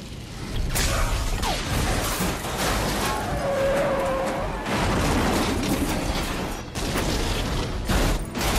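Film sound effects of a car chase in a tunnel: a string of crashes and metal impacts as cars collide and one flips onto its roof, the heaviest hits near the end, over a low rumble and music.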